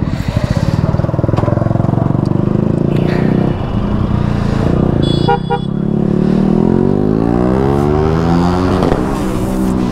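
Motorcycle engine running under throttle, then pulling up through the revs with a steadily rising pitch from about six seconds in, dipping briefly near nine seconds and climbing again. A short double horn beep about five seconds in.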